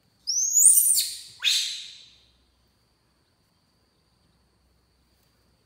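Baby monkey squealing twice, high-pitched: the first call rises and then falls, and the second slides downward about a second later.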